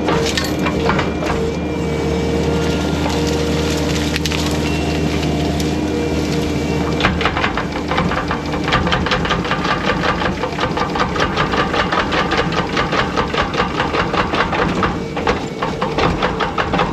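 Skid steer engine running while a hydraulic tree puller works a small tree out of the ground, with wood cracking early on. From about seven seconds in comes a fast, even clatter of four or five knocks a second as the uprooted tree is shaken to knock the dirt off its roots.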